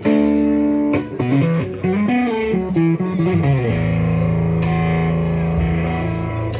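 Electric guitar played live through an amplifier: a run of changing notes, then notes held from about four seconds in.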